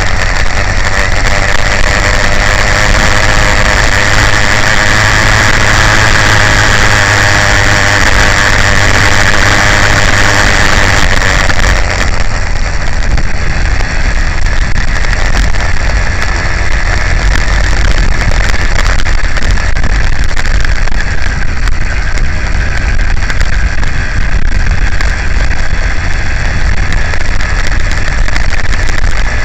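The F80 bicycle motor, a small two-stroke engine on a motorized bicycle, running steadily while riding, over a constant low rumble. About twelve seconds in, its higher whine drops away and the note settles lower.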